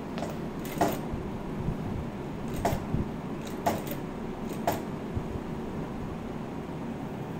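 Sharp mechanical clacks from a direct-drive single-needle lockstitch industrial sewing machine while the fabric is handled and repositioned at the needle. There are about four of them, roughly a second apart, over a steady background hum.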